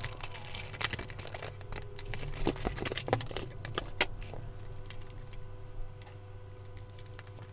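Unboxing handling: cardboard packaging and plastic wrap rustling, with many short clicks and rattles as the inline duct fan and its bagged parts are taken out, over a steady low hum. The handling thins out after about four and a half seconds.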